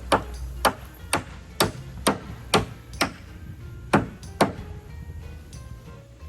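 Hammer blows on wood: about ten sharp strikes at roughly two a second, with a short pause about three seconds in. Background music plays underneath.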